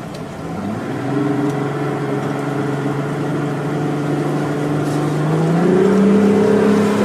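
Engine of a motor launch running with a steady drone, then speeding up about two-thirds of the way through, its pitch rising and the sound getting louder.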